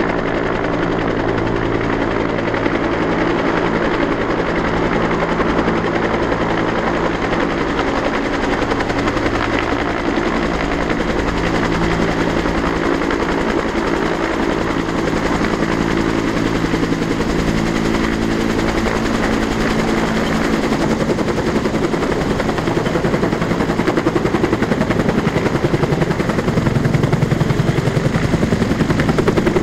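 Bell AH-1S Cobra attack helicopter's two-bladed rotor beating in rapid, continuous pulses over a steady turbine hum.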